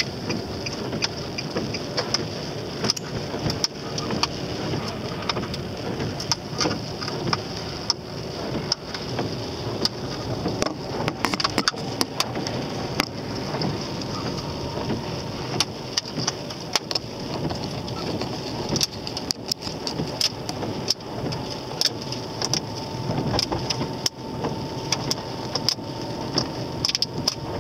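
Car driving on a wet road, heard from inside the cabin: engine and tyre hiss, with many small ticks of rain on the windscreen as the wipers sweep. A faint steady whine comes in during the last few seconds.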